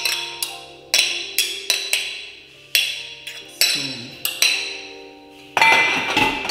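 Background music of light struck, plucked-sounding notes, roughly two a second, each ringing briefly. Near the end there is a short, louder burst of clatter.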